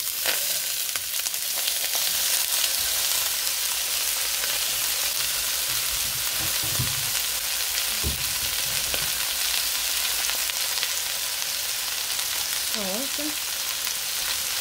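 Chopped vegetables sizzling steadily in hot oil in a wok.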